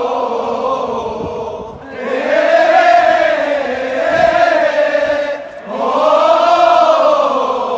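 A group of men's voices chanting a football supporters' chant in unison, in long sung phrases that rise and fall. The chanting breaks briefly about two seconds in and again about five and a half seconds in.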